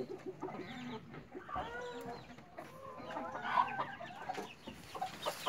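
A group of hens clucking, a stream of short, irregular calls from several birds at once.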